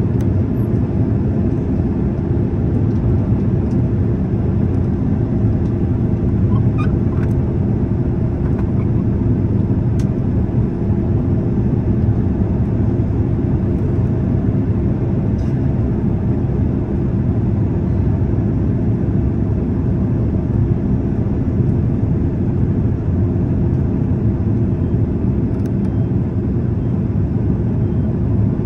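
Airliner cabin noise: the steady rumble of the jet engines and rushing air heard from a passenger seat, with a constant low hum. A few faint ticks about seven and ten seconds in.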